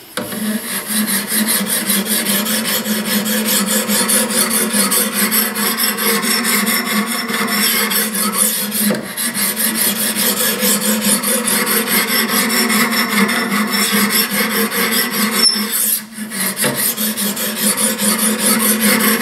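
Hand-held DMT diamond sharpening stone stroked rapidly back and forth along a steel hunting knife's edge to grind its bevel: a continuous run of fast scraping strokes, with a short pause about sixteen seconds in.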